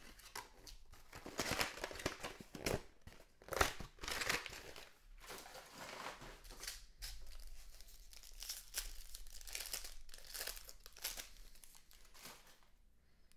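Plastic packaging of a trading-card pack crinkling and tearing as it is opened by hand, a run of irregular rustles and crackles.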